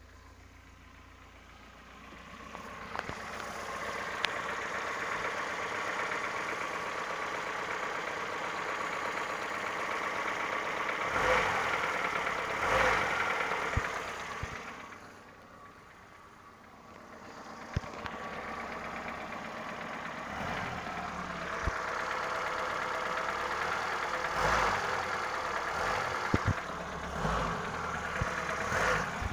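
Engine running with a knock that the owner takes for piston knock, about 6,000 km after a major overhaul. The sound builds up a few seconds in, falls away for a few seconds around the middle, then picks up again.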